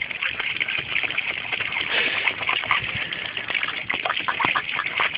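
Water spraying from a hose and splashing as a pit bull bites and laps at the stream, with a steady hiss of spray and many quick wet snaps and slurps, more of them in the second half.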